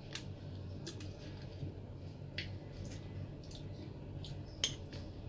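Wet mouth sounds of someone eating milkfish with her hands: scattered short sharp smacks and clicks of chewing and lips, about seven in all, over a low steady hum.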